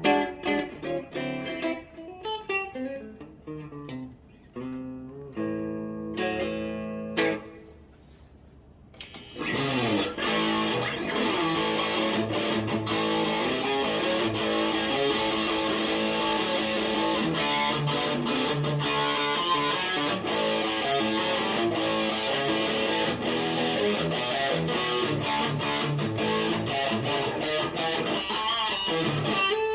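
Gibson CC#34 electric guitar played through an amp: clean picked notes and chords that ring and fade for the first eight seconds or so, then after a short pause overdriven playing, dense and sustained, for the rest.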